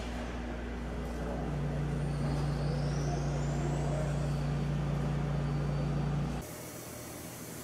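Dual sanitary auger filler and bottle conveyor running: a steady mechanical hum with a low drone, and a faint rising whine about two seconds in. About six seconds in, the sound cuts abruptly to a quieter, steady hum.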